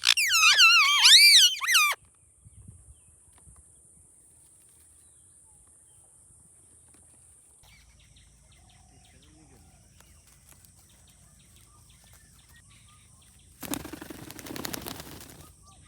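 Indian ringneck parrot giving loud warbling calls that swoop rapidly up and down in pitch, stopping about two seconds in. Near the end comes a short noisy burst lasting under two seconds.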